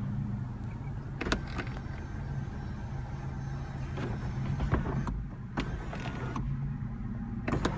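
Electric sunroof motor of a 2016 Honda Civic running as the one-touch sunroof opens: a steady low hum that fades near the end, with a few light clicks.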